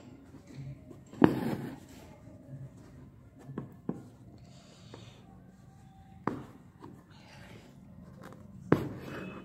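Handling sounds from hand embroidery: a handful of sharp taps and clicks from the embroidery hoop and fabric as the needle is worked through. The loudest comes about a second in and is followed by a short rustle.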